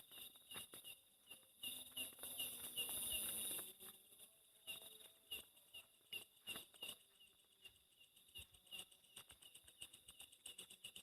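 Crickets chirping in a forest at night, faint, with one short chirp repeating about three times a second over a high insect hiss. A louder stretch of rustling noise comes about two seconds in and lasts a second or two.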